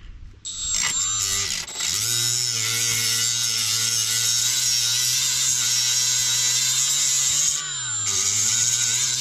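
Cordless rotary tool spinning up about half a second in and running at high speed with a steady whine, its small wheel scouring rust and old tar-like underseal off a car's underbody. Near the end the motor slows briefly under load, then picks back up.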